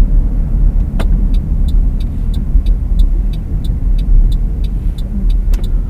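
Steady low road and engine rumble inside a moving car. About a second in, a sharp click, then a turn-signal indicator ticks evenly, about three ticks a second, as the car is set to turn right.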